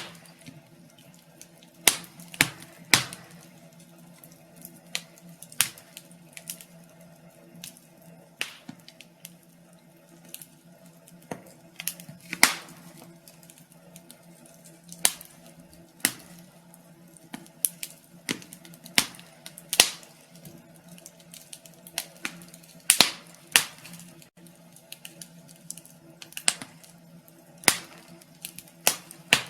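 Wood fire in a fireplace crackling: irregular sharp pops and snaps, a few every couple of seconds and some much louder than others, over a quiet steady background.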